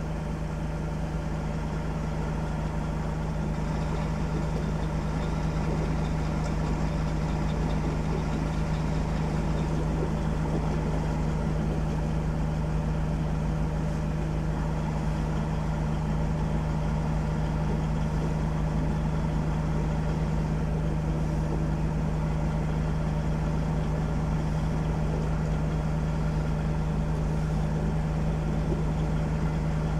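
Volvo heavy-haulage truck's diesel engine idling steadily, a constant low hum that neither rises nor falls.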